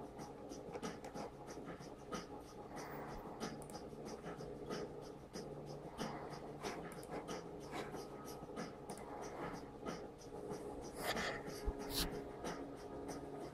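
Scratchy rustling and irregular light clicks from a hand-held camera's microphone being handled, over a steady faint hum, with a few louder clicks near the end.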